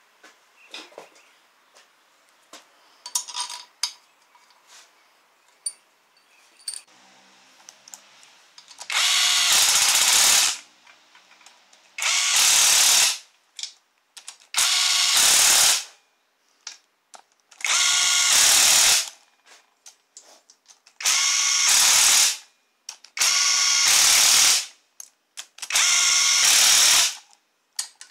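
A cordless power tool running bolts into an engine's aluminium oil-pan housing, in seven short bursts of about a second each, roughly two seconds apart, with a pitched motor whine. Before the bursts, about nine seconds of light clicks and clinks of parts being handled.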